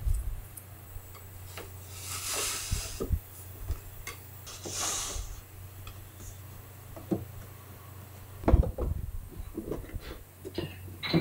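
Walnut furniture parts being handled and fitted: two short scraping swishes in the first half, then a run of wooden knocks and clatter, the loudest a little past the middle. A steady low hum runs underneath.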